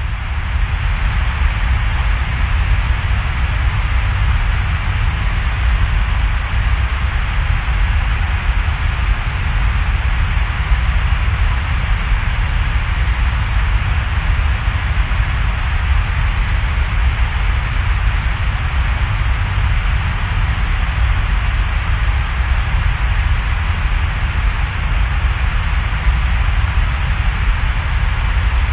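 Steady background noise ambience: an even hiss with a deep rumble beneath it, unchanging throughout.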